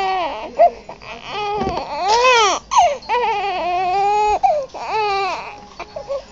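Infant crying: several long wails, each arching up and down in pitch, with short catches of breath between them.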